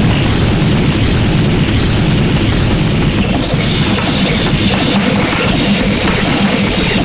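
Harsh noise music: a loud, unbroken wall of distorted noise, heaviest in the bass, with dense crackle across the whole range.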